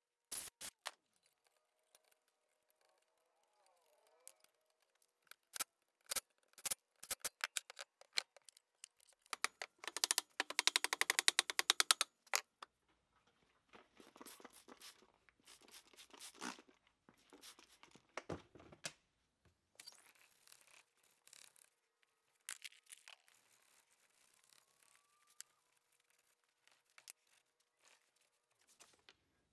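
Hand cleaning of an old electric motor's metal housing: a rag rubbing and scraping over the end bell, with scattered clicks and knocks. About ten seconds in comes a fast, loud run of scratchy clicks. Later there are softer rubbing passes and the hiss of a spray cleaner.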